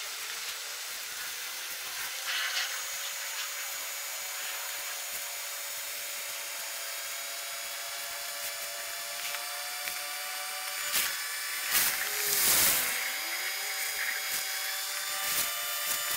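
Electric blower fans of Christmas inflatables running with a steady whirring hum made of several motor tones at different pitches. About eleven to thirteen seconds in a brief louder rush sweeps past.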